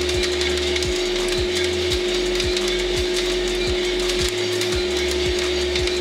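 Drum coffee roaster running with a steady hum from its drum and fan, while the beans crackle through first crack: scattered sharp pops throughout.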